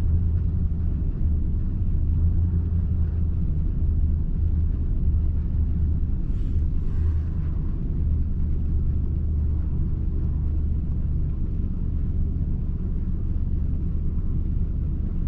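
Nissan Titan's gasoline V8 engine idling with a steady low rumble. The truck has multiple misfires, with bank 2 running rich and the mass airflow sensor reading too much air.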